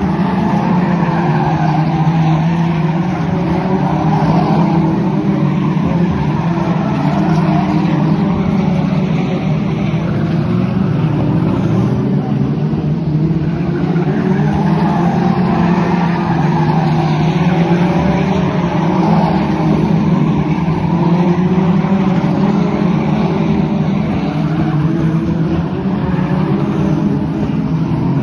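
Formula 2 stock car engine running hard at racing speed without a break, its note slowly rising and falling over a steady noise of tyres sliding on the track.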